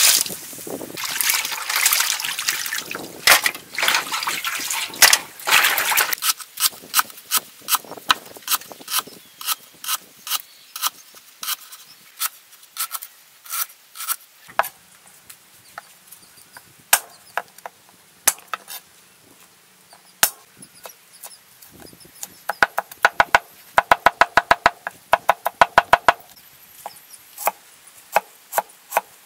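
Water poured and splashing into a basin of cut snake pieces for the first several seconds. Then a large knife chopping on a board, slicing lemongrass and ginger in single strokes, with a fast run of quick chops about three-quarters of the way through.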